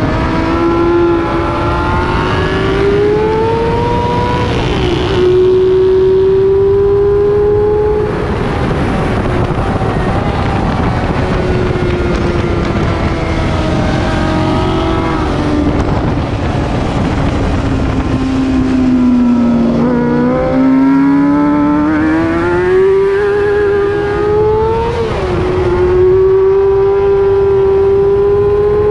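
Racing motorcycle engine heard onboard at speed under a steady rush of noise, its pitch climbing under acceleration and dropping sharply at upshifts about four seconds in and again near the end. It sinks low for a moment past the middle, then pulls up through the revs again. With fourth gear broken, its upshifts go straight from third to fifth.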